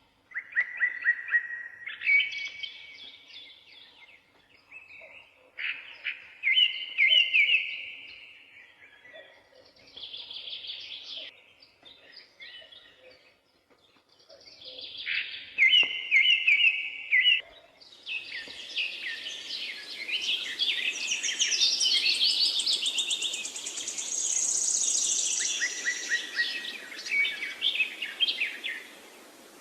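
Several songbirds singing in short, varied, repeated phrases with brief gaps between them. About eighteen seconds in, a steady rushing noise comes in beneath denser, overlapping song.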